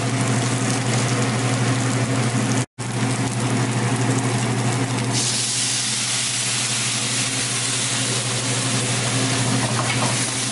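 Pearl onions and mushrooms frying in a steel pan of butter, bacon fat and flour roux, sizzling steadily over a low hum. The sizzle grows louder and hissier about five seconds in.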